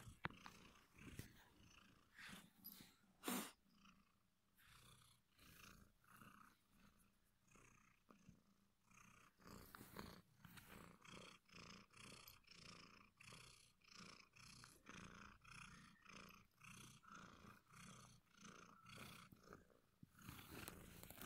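Domestic cat purring faintly, close to the phone's microphone, in regular pulses about two a second that grow steadier about halfway through.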